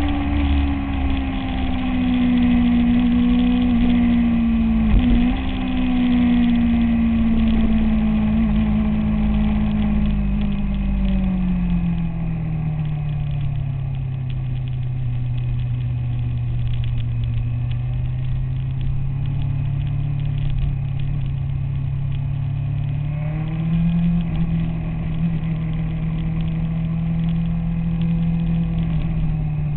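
Motorcycle engine running under way, heard from the bike over a low rumble of wind and road. Its pitch sinks over the first ten seconds or so, holds lower, then rises slightly about two-thirds of the way through.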